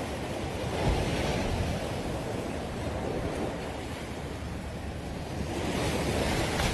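Sea surf washing onto a sandy beach, with wind on the microphone. The surf swells about a second in and again near the end.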